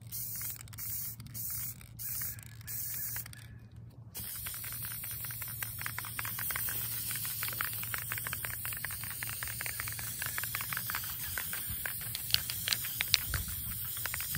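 Rust-Oleum aerosol enamel spray can hissing a steady stream of fine mist onto a flat tabletop, with a fine crackling spatter through the hiss and a few sharper ticks near the end. Before that, for the first few seconds, comes a run of short, evenly spaced hisses.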